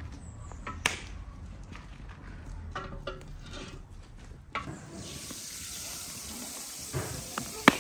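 A large metal pot knocks a few times on an iron fire-ring stand. From about five seconds in comes a steady hiss: granulated sugar pouring from a bowl into water in the pot, with a sharp click near the end.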